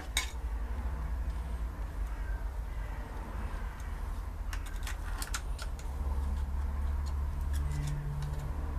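A thin screwdriver clicking and scraping against the steel steering rack housing held in a bench vice: a handful of sharp metal clicks around the middle, over a low steady hum.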